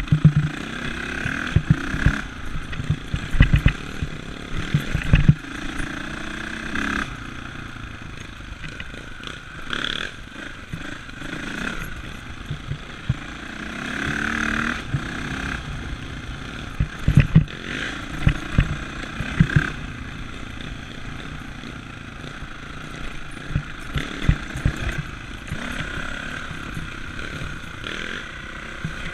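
Dirt bike engine running under way, its pitch rising and falling as the throttle is worked, with bursts of loud thumps and rattles as the bike rides over bumps on a rough trail.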